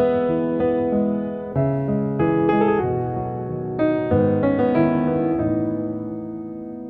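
Background piano music: gentle chords and melody notes, the last chord fading out slowly.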